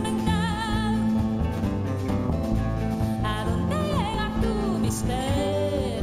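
Live acoustic band music: an upright double bass plucked pizzicato under a high melody that wavers and bends in pitch.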